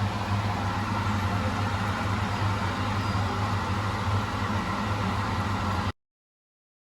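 A steady low mechanical hum with a hiss over it, cutting off abruptly to silence about six seconds in.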